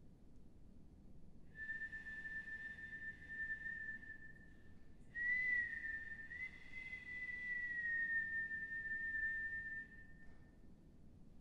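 A woman whistling long held notes as part of a contemporary solo vocal piece: one steady note starting about a second and a half in, then after a brief break a second long note with small bends in pitch that fades out near the end.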